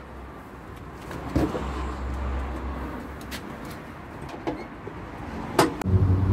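Sharp knocks and clicks of car body panels being handled and fitted, a loud one about a second and a half in and another near the end, over the low rumble of a passing vehicle.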